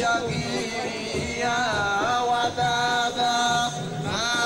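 A man's voice chanting a melody in long held notes that slide up and down between pitches.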